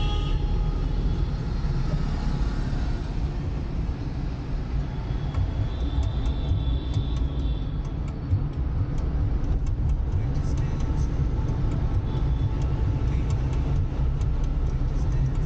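Steady low rumble of a car driving in traffic. A faint high tone sounds about a third of the way in, and a run of light clicks comes in the second half.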